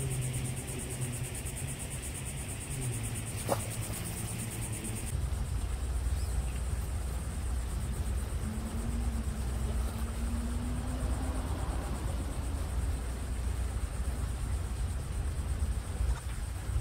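Insects buzzing steadily in a high, evenly pulsing drone. About five seconds in, the sound cuts to a steady low rumble with a faint slowly rising hum.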